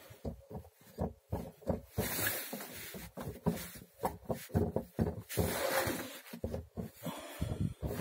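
Drum and pulley of an Indesit IWSC5085 washing machine being rocked back and forth by hand, knocking and rattling in quick, irregular strokes. The drum wobbles loosely on worn drum bearings.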